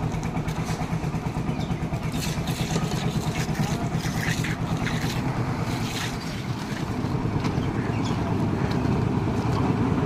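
Concrete mixer machine with bucket hoist, its engine running steadily with a fast low pulse, with scattered metallic knocks and clanks.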